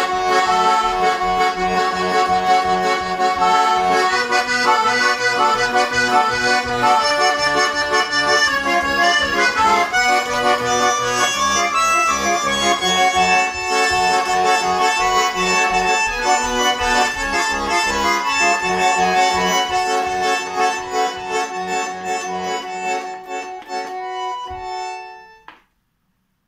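A Shuya-made Chaika-2 garmon (Russian button accordion) playing a tune: sustained right-hand chords and melody over a steady pulsing left-hand bass accompaniment. It ends on a held chord and stops shortly before the end. The instrument has just been repaired and fully retuned.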